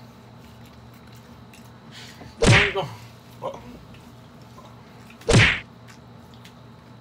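Two loud thuds about three seconds apart, each a short heavy knock.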